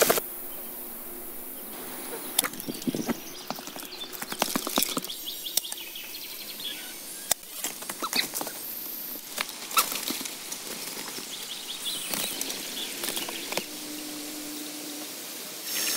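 Footsteps rustling and crunching through leaf litter and undergrowth, with scattered crackles of dry leaves and twigs, and birds chirping in the background.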